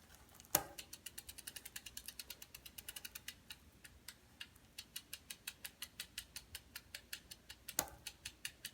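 Bicycle chain and drivetrain clicking in an even train of sharp clicks. The clicks come at about ten a second and slow to about half that partway through, with a louder clack about half a second in and another near the end. This is the chain clicking noise whose cause is unknown.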